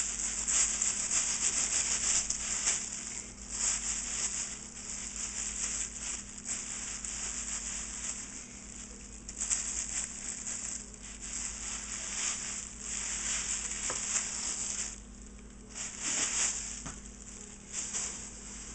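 Thin plastic grocery bag rustling and crinkling in irregular bursts as hands work a raw beef tenderloin inside it, quieter over the last few seconds.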